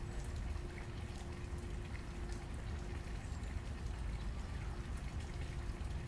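Large garden fountain's water falling and splashing steadily into its basin, with many small drips and splashes.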